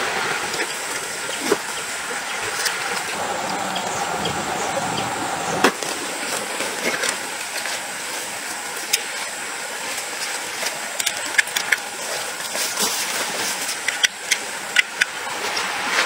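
A steady outdoor background hiss, with scattered small clicks and knocks from about ten seconds in as camping gear is handled: a gas canister and a folding portable gas stove being fitted together.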